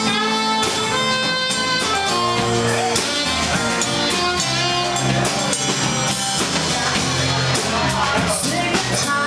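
Live band playing: a saxophone carries a melodic solo line over strummed guitar backing.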